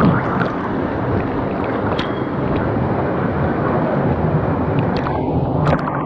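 Steady rush of river water in a canyon, with a few light clicks.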